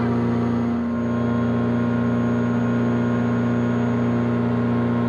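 Engine and propeller of an ASG 32 Mi self-launching glider running with a steady drone, heard inside the cockpit.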